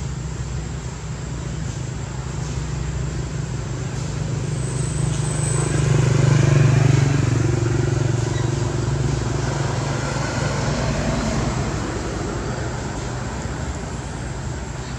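A motor vehicle's engine rumble going by: a steady low drone that builds to its loudest about six to seven seconds in and then fades back down.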